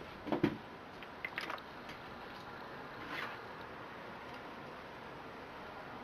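Handling of a steam iron on a padded ironing board: two light knocks less than a second in, a few small clicks about a second later, then a brief rustle of fabric near the middle, with quiet room tone after.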